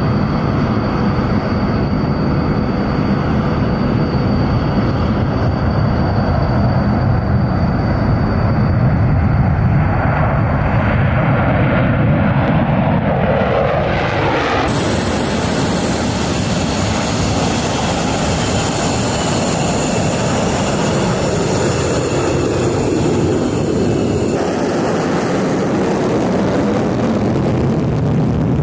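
Military jet engines running at high power, a loud steady roar with a tone that drops in pitch as a jet goes past about twelve to fourteen seconds in. The sound then changes abruptly to jets on the runway with a steady high whine over the rumble.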